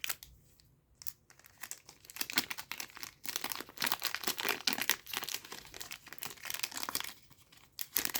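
A trading card booster pack wrapper being torn open and crinkled by hand, in quick irregular crackling bursts for several seconds, then a few separate crinkles near the end.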